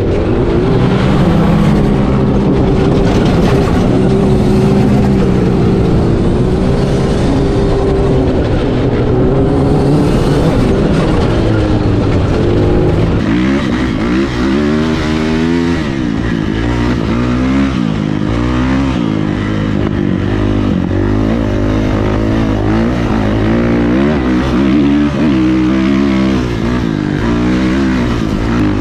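Sand rail buggy engine running at speed across the dunes, its note fairly steady with slow wavering. About 13 seconds in it changes to a dirt bike engine revving up and down over and over as the bike is ridden through the sand.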